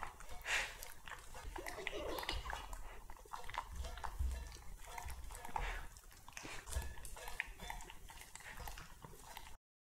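Italian greyhounds licking and chomping raw minced meat food out of stainless steel bowls: irregular wet smacks and licks, with short clicks of tongue and muzzle against the metal bowl.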